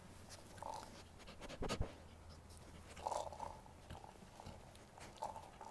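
A basset hound working an orange rubber treat-puzzle toy on carpet: scattered knocks and crunchy, chewing-like sounds, the loudest a pair of knocks about a second and a half in.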